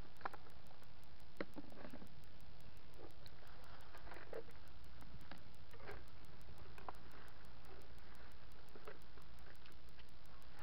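Body-worn camera's microphone picking up a steady low rumble, with scattered faint clicks and rustles at irregular times as the camera knocks and rubs while its wearer moves and walks.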